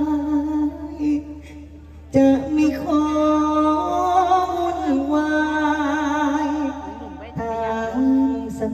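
A male likay performer singing solo into a headset microphone, in long held notes with a wavering vibrato, pausing briefly about two seconds in before taking up the line again.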